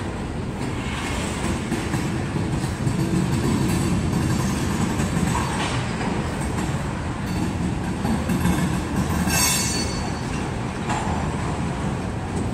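Freight train of tank cars and covered hoppers rolling past, a steady low rumble of wheels on rail, with a brief high squeal about nine seconds in.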